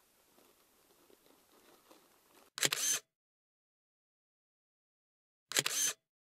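Two SLR camera shutter sounds about three seconds apart, each a sharp click with a short tail, marking the change to a new still photo.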